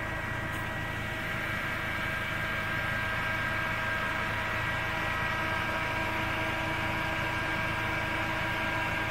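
Car driving: a steady hum with an even rush of road noise.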